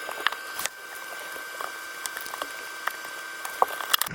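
Scattered light clicks and taps over a steady hiss, from hands working in a washing machine's drain pump housing and pipe to get a coin out.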